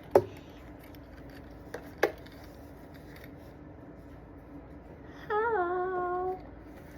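Sharp clicks, the loudest right at the start and two smaller ones about two seconds in, then a child hums a single note near the end that wavers and then holds steady for about a second.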